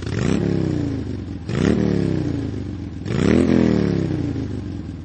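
Motorcycle engine revved three times, each blip rising quickly in pitch and then falling back slowly.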